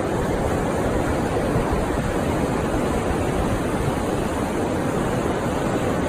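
Steady wash of surf breaking on a sandy beach, with wind buffeting the microphone.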